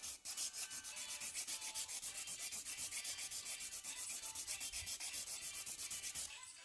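Hand nail file filing a hardened polygel nail in quick, even back-and-forth strokes, several a second, thinning the nail where it is still too thick. The strokes stop shortly before the end.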